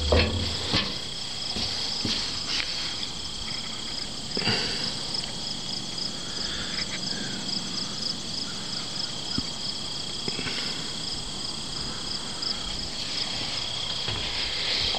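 Field crickets chirping steadily in a fast pulsing trill, with a few scattered knocks of handling against the locomotive.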